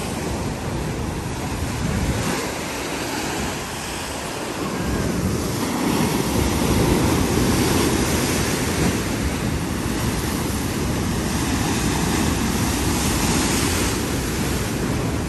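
Heavy storm surf: waves breaking and churning into foam, a continuous rush of water that grows louder about five seconds in as a bigger wave breaks.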